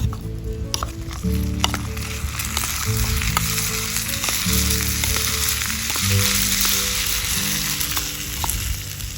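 Food sizzling in oil in a frying pan, the sizzle swelling about two seconds in, with a few light clicks; background music with bass notes plays underneath.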